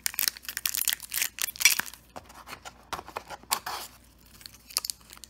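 Clear plastic packaging crinkling and crackling as it is handled: a dense run of rustles and small crackles in the first two seconds, then sparser, quieter crackles.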